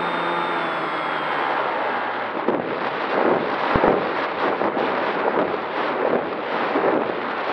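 Durafly Tundra's brushless electric motor whining steadily, then cut off about two seconds in. Wind then rushes and buffets over the onboard camera's microphone as the plane glides in with the propeller stopped, with a couple of low thumps about halfway.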